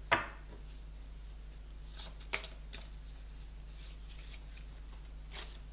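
A deck of tarot cards handled and shuffled in the hands: a sharp card snap just after the start, then a few lighter card clicks around two seconds in and once more near the end, over a steady low hum.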